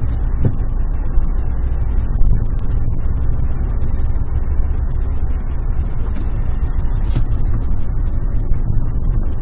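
Suzuki Jimny Sierra driving, picked up by its dashcam: a steady low engine and road rumble with scattered small knocks and rattles.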